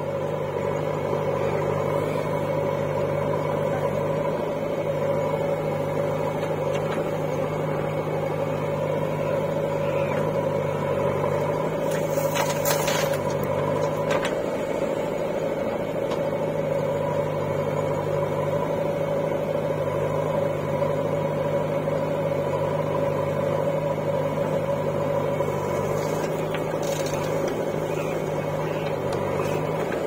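Diesel engines of a standing tractor and a JCB 3DX backhoe loader running steadily. A brief noise breaks in about twelve seconds in.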